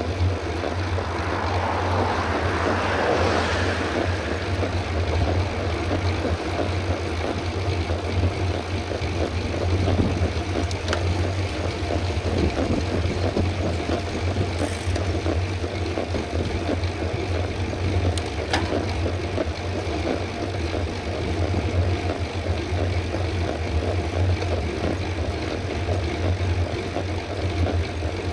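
Mountain bike riding at race pace on a paved road: steady wind rush and tyre noise on the camera's microphone, with a deep constant rumble and a few light clicks from the bike.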